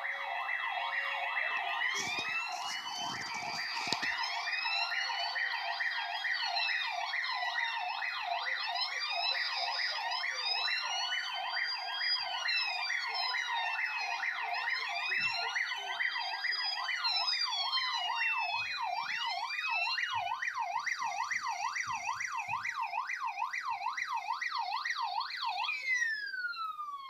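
Several emergency vehicle sirens sounding together, a fast yelp over slower rising and falling wails, played back through a TV speaker. About a second before the end the sirens stop and one winds down in a falling glide.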